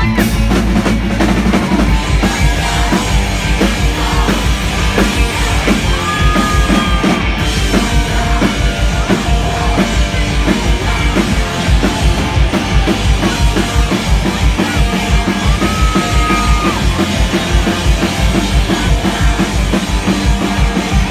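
Live rock band playing loud, with distorted electric guitar and a fast, driving drum kit beat, heard from within the crowd.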